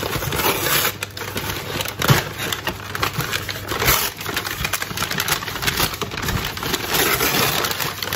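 Brown paper bag crinkling and rustling as it is unrolled and handled, with a few sharper knocks along the way.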